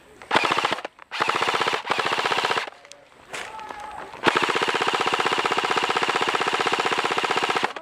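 Airsoft gun firing on full auto: three short bursts of rapid shots, then a long sustained burst of about three and a half seconds.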